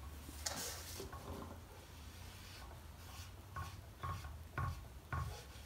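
Folded cotton rag pad rubbing a wipe-on oil-and-varnish finish into a wooden board in repeated strokes, with four short, louder strokes about half a second apart in the second half.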